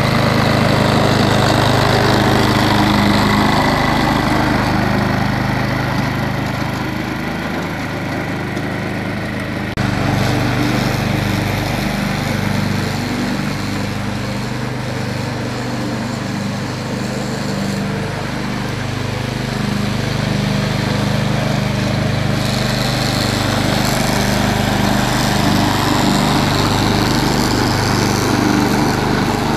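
Walk-behind string trimmer's small gasoline engine running steadily under way. About ten seconds in the sound changes abruptly to a second walk-behind trimmer's engine, also running steadily.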